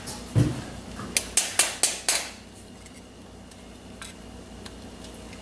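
A dull thump, then five quick, sharp metallic taps about a quarter second apart: a small hammer tapping the steel retaining pin into an extended magazine base pad.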